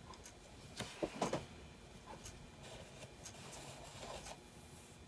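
Sewing supplies being handled: a brief rustle and clatter about a second in, then faint scattered ticks and light rustling.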